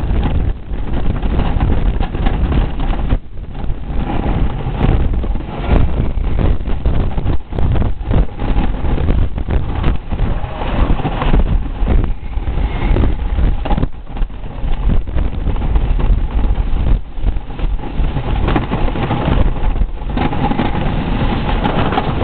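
Blue Streak wooden roller coaster train running over its wooden track: a loud, continuous rumble and rattle with many sharp clacks, and wind rushing over the microphone.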